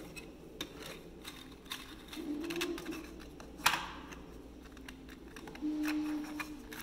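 3D-printed PLA spherical roller bearing being turned by hand: light plastic clicks and rattles from the rollers and races, with one sharp click about three and a half seconds in. Two short, steady low hums come in, the first about two seconds in and the second near the end.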